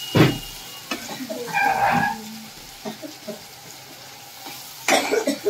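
Onions and ginger-garlic paste sizzling in hot mustard oil in a kadai while a spatula stirs and scrapes the pan. There are sharper scrapes or knocks over the sizzle, the loudest just after the start and another near the end, and a brief pitched squeak about two seconds in.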